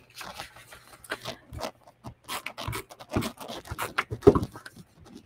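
Paper and photo prints sliding and rustling on a scrapbook layout, a string of irregular scrapes. Toward the end a tape runner is drawn across a piece of white cardstock, giving short scraping strokes.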